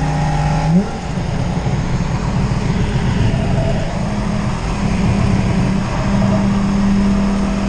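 Car engine droning steadily under road and tyre noise, heard from inside the cabin at highway speed. The engine note rises a little under a second in, then holds at a slightly higher steady pitch.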